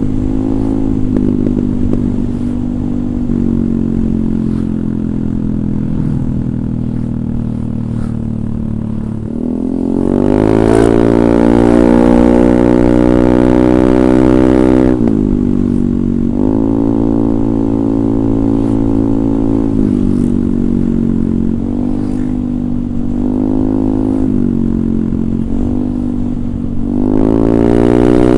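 Yamaha Aerox 155 scooter's single-cylinder four-stroke engine running through a DSM Cobra aftermarket racing exhaust and being revved. Early on it settles to low revs. About ten seconds in it climbs quickly to high revs and holds them for several seconds, then drops back and rises and falls a few times, and it revs up again near the end.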